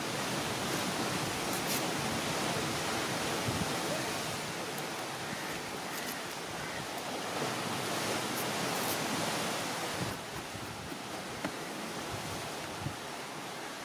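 Steady rushing of sea surf and wind on the microphone, easing slightly about ten seconds in, with a few faint taps of a chef's knife slicing onions on a plastic cutting board.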